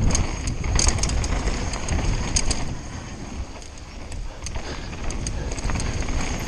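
Conway WME mountain bike riding down a rough, holey downhill trail, heard through a GoPro Hero4 Session: a steady low rumble of wind and ground noise, broken by irregular sharp rattles and clicks from the bike as it hits bumps.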